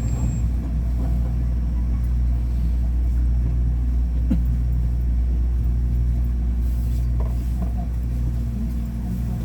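Steady low rumble and hum inside a Ui-Sinseol Line light-rail car.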